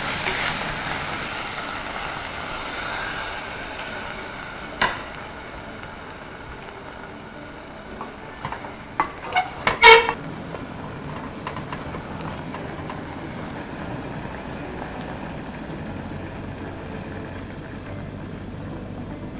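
Pork and onions sizzling in an enamel pot as a wooden spatula stirs them, the sizzle fading over the first few seconds. About ten seconds in come a few knocks, then one loud ringing clink on the pot, followed by a quieter steady simmer.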